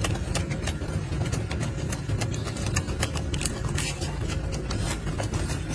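Golden snub-nosed monkey handling and chewing lettuce leaves close up: irregular crisp crunches and crackles, several a second, over a steady low rumble.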